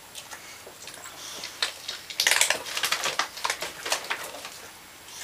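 Plastic dog food bag crinkling and rustling in a run of crackles as it is pulled and lifted off the floor, loudest a little after two seconds in.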